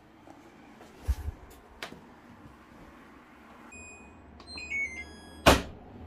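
A washer door knocked shut, then the Winia (Daewoo) DWD-35MCRCR wall-mounted mini washer's control panel playing a short electronic beep melody, followed by a sharp knock.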